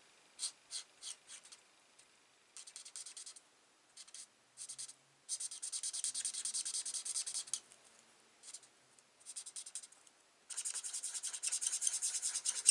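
Stampin' Blends alcohol marker scribbling on cardstock in quick back-and-forth strokes. The strokes come in several bursts with short pauses between them, the longest runs near the middle and towards the end.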